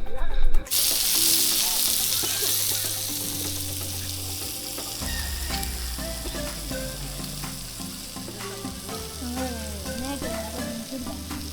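Food frying in a pan, a sizzle that sets in suddenly under a second in and slowly dies down.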